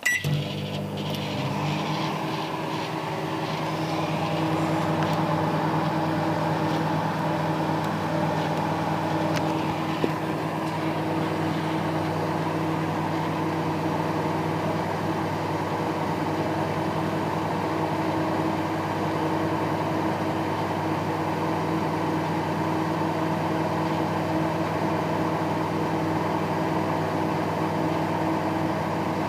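Microwave oven running a 30-second heating cycle: a steady hum that starts with a short beep as it is switched on.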